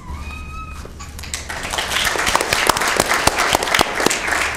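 Room full of people applauding: scattered hand claps that build about a second in and thin out near the end.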